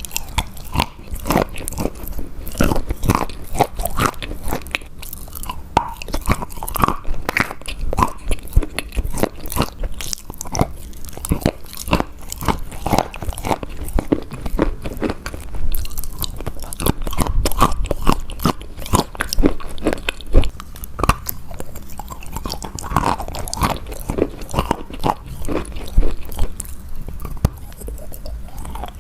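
Close-miked chewing and crunching of a burger, with dense crisp crackles from bites and mouthfuls throughout.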